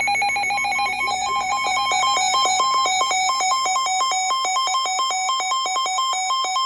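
Weather radio alert alarm: a loud electronic beeping warble that flips rapidly between two pitches, sounding the start of a severe thunderstorm warning.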